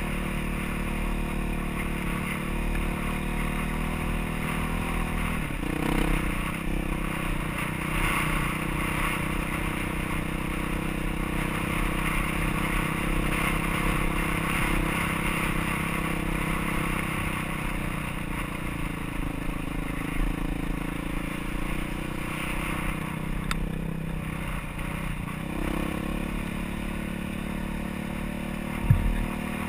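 Motorcycle engine running under way on a trail ride, its pitch rising and falling with the throttle. A single sharp knock comes near the end.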